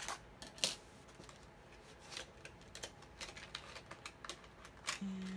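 Thin metal die-cutting dies (a nested set of layering square dies) clicking against each other and a clear plastic storage pocket crinkling as they are handled, with light scattered clicks, one sharper about half a second in, as a die is set down on a cutting mat.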